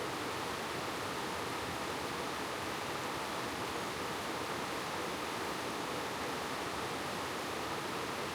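Mountain valley stream, its water rushing in a steady, unbroken wash.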